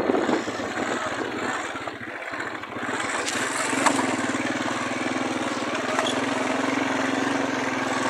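Motorcycle engine running as it is ridden over rough dirt ground. The engine note eases off about two seconds in, then picks up and holds steady from about three and a half seconds.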